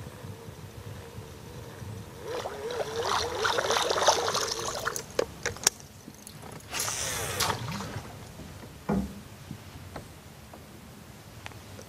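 Water splashing and gurgling in two bursts, the first lasting about three seconds and the second about one, followed by a couple of sharp clicks and a dull knock near the end.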